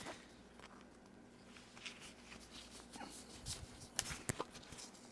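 Faint rustling and a few short, sharp clicks as a Velcro watch strap is wrapped and fastened around a wrist, with two clearer clicks about four seconds in.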